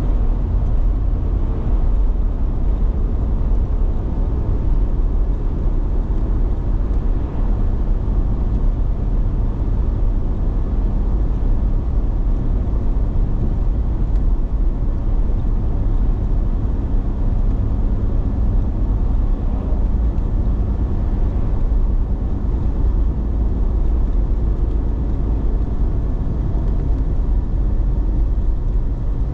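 Steady road noise and engine hum of a car driving along a highway, heard from inside the car.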